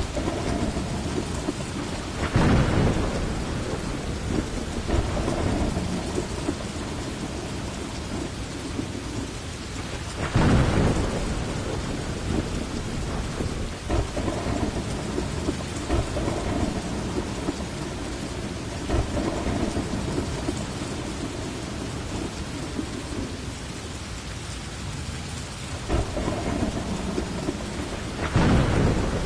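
Heavy rain falling steadily, with rolls of thunder swelling up about two seconds in, again around ten seconds in, and near the end.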